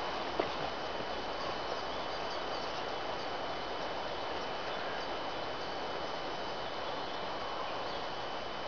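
Steady outdoor background hiss with a faint, steady high-pitched whine through it, and a single sharp click about half a second in.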